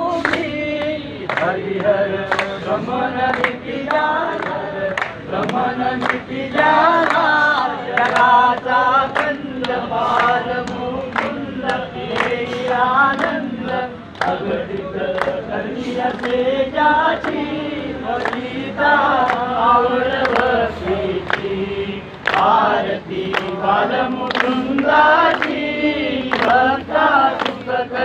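A group of men and women singing a devotional bhajan together, with hand claps keeping an even beat about twice a second.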